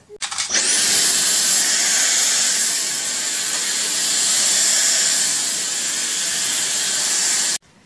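Cordless stick vacuum cleaner starting up with a quick rising whine, then running steadily as it is pushed over a wooden floor, and switched off abruptly near the end.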